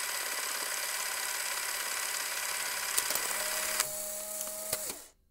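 Sound effect for an animated logo intro: a steady, dense buzzing noise, sharp clicks about three and four seconds in, then a lower held hum that stops near the end.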